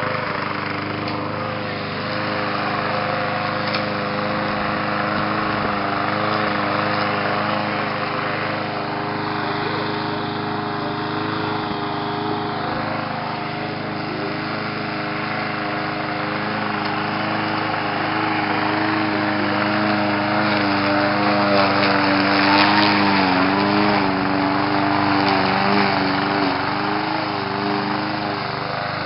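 Small gasoline engine of a walk-behind lawn mower running steadily while mowing, its pitch dipping briefly a few times past the middle.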